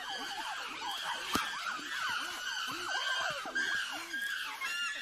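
Several chimpanzees screaming and shrieking over one another in a squabble, many high calls rising and falling in pitch. A single sharp knock about a second and a half in.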